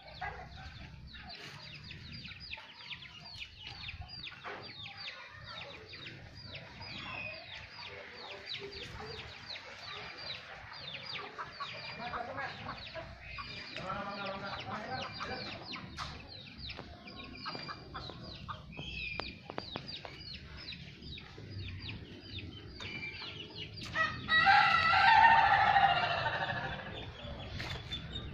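Ayam ketawa (Indonesian laughing chicken) rooster crowing once, long and loud, near the end, over chickens clucking and calling throughout.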